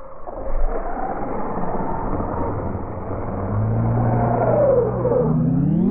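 Large electric RC car driving hard, its motor whine rising and then falling over a steady rumbling noise.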